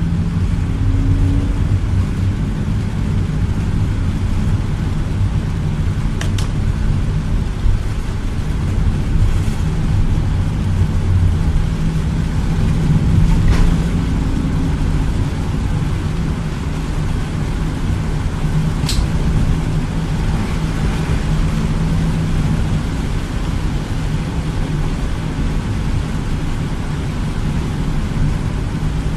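Inside a car driving on a rain-soaked highway: a steady low rumble of engine and tyres with a hiss of spray from the wet pavement, and a few sharp clicks spread through it.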